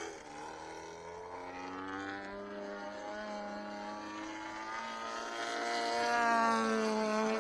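DA-120 twin-cylinder two-stroke gasoline engine of a giant-scale RC aerobatic plane droning in flight overhead, its pitch gently rising and falling with throttle and growing louder near the end. It holds its revs without sagging, the sign that the hand-set carburettor needles now suit it.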